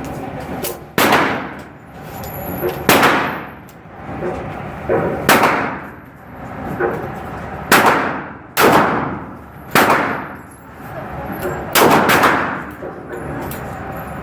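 Firearm shots fired one after another at an irregular pace, about one to two seconds apart, each with an echoing tail, and a few fainter clicks between them.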